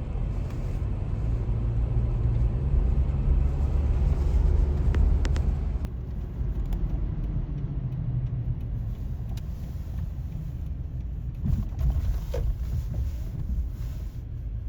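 Steady low rumble that eases slightly after about six seconds, with a few faint ticks over it.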